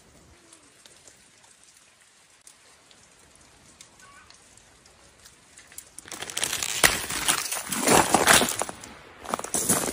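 A quiet outdoor background for about six seconds, then loud, irregular crunching and rustling close to the microphone to the end.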